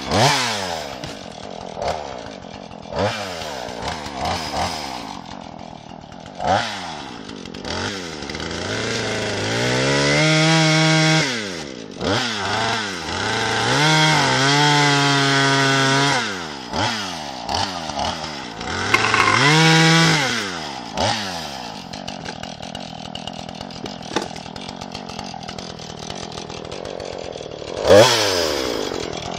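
Chainsaw revving repeatedly: quick throttle blips, several held spells of a second or two at full throttle, and lower running in between.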